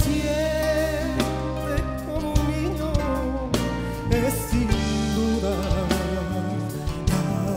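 Male singer with a flamenco-tinged voice singing a ballad live over band accompaniment, holding long notes with a wavering vibrato over steady bass and drum hits.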